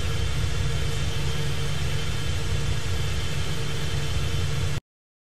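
Steady airliner engine and airflow rumble, with faint steady whining tones over it. It cuts off abruptly near the end.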